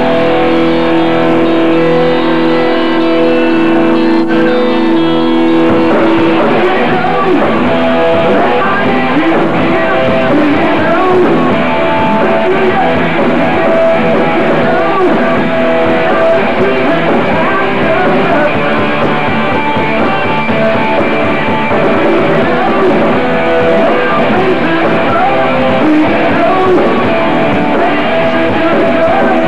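Live rock band playing: electric and acoustic guitars with drums. A chord is held for roughly the first six seconds, then the playing turns busier and denser.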